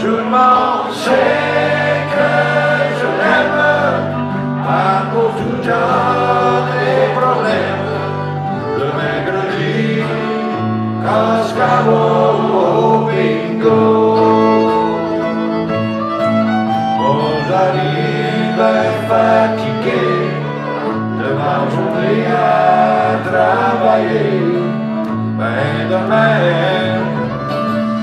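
A man singing a French-language song while playing an acoustic guitar live, over steady low bass notes.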